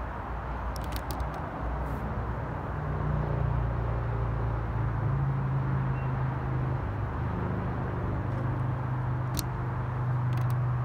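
Low steady vehicle hum over outdoor rumble, growing a little louder about three seconds in, with a few faint clicks.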